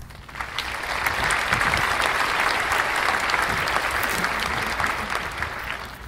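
Plastic wrapping of a rose bouquet and a foil heart balloon crinkling as they are handled right against the microphone: a dense, even crackle that builds up over the first second and dies away near the end.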